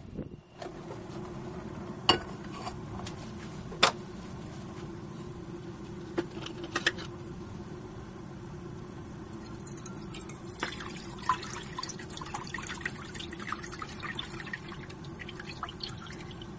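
Dark liquid poured and dribbling into a metal saucepan on a gas burner: scattered sharp clicks, then a run of small crackling drips and ticks about two-thirds of the way through, over a steady low hum.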